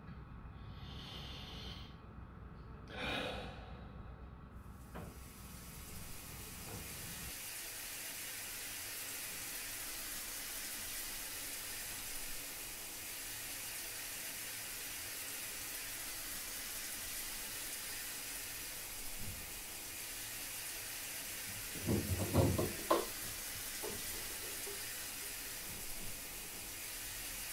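A sigh about three seconds in, then a steady hiss of running water in a tiled bathroom, with a few short handling knocks near the twenty-two second mark.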